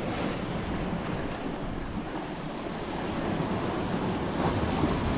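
Sea surf washing and breaking against rocks below, a steady rush of water, with wind buffeting the microphone.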